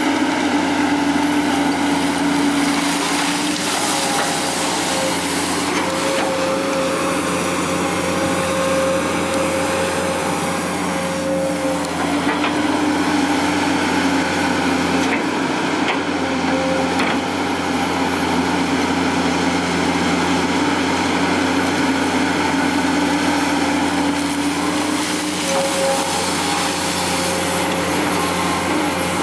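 Komatsu PC200 hydraulic excavator's diesel engine running steadily under working load as the excavator digs and swings through dumped garbage, its tones growing and fading as the arm moves, with a few faint knocks.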